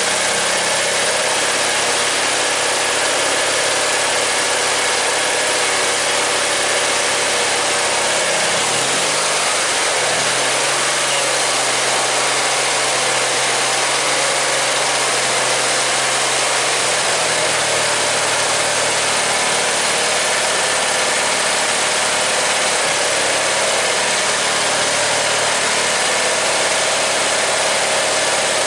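Simplicity garden tractor's engine running steadily at idle; its note dips and settles at a slightly different pitch about nine seconds in.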